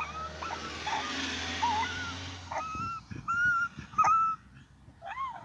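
A boy's high-pitched squeals and whines: several short wavering calls that slide up and down in pitch. A steady rushing noise runs under the first half and stops about two and a half seconds in.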